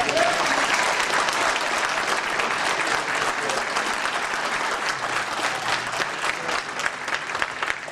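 A crowd of people applauding: dense, continuous clapping that tapers slightly toward the end.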